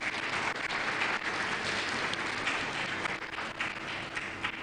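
Audience applauding in a hall, a dense spatter of hand claps that swells at the start and thins out near the end.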